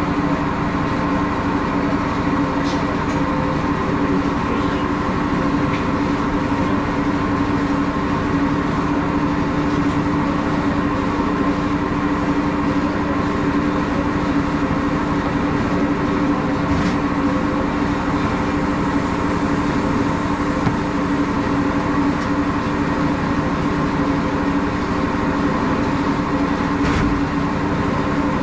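Plastic-can blow-moulding machinery running with a steady, loud drone and a constant hum, unchanging throughout, with a few faint knocks from handling.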